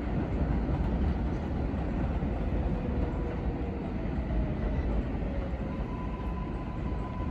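A train rumbling along the tracks, with a faint whine that settles into a steady higher note about six seconds in.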